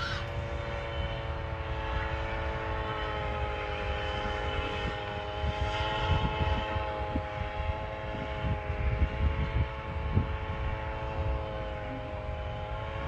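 Paramotor engine droning steadily, its pitch wavering slightly as the powered paraglider flies. Wind buffets the microphone throughout.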